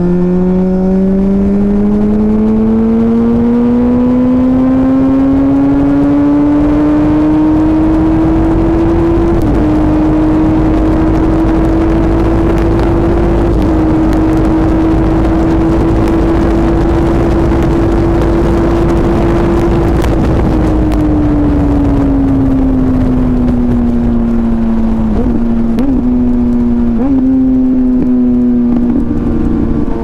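Suzuki GSX-R1000's inline-four engine pulling with pitch climbing steadily, holding a steady high note for a while, then falling off as the throttle closes. There are a few brief blips near the end, and wind noise runs underneath.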